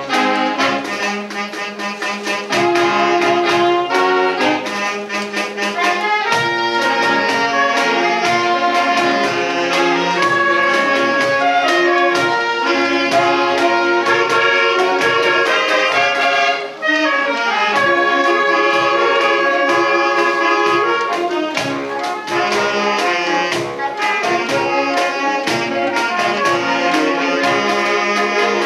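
Saxophone ensemble playing a lively piece, several saxophones sounding together in harmony with rhythmic accented notes. There is a brief dip in the sound about two thirds of the way through.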